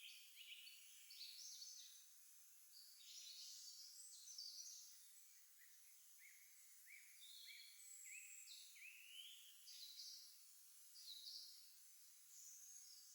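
Faint spring chorus of several songbirds: many short overlapping chirps and whistled notes, some sliding down in pitch.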